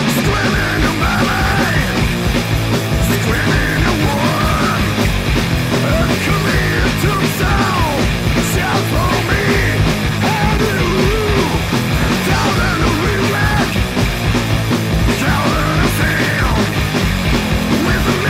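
Studio recording of a speed metal / punk band playing at full tilt: dense guitars and rapid drumming under shouted, yelled vocals.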